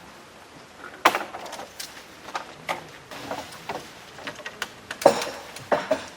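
A series of irregular knocks and clatters of things being handled or set down, with sharp ones about a second in and about five seconds in.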